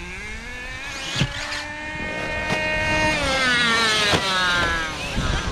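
Electric RC basher car's motor and drivetrain whining: the whine rises in pitch, holds, then falls as the car slows. Three sharp knocks sound over it.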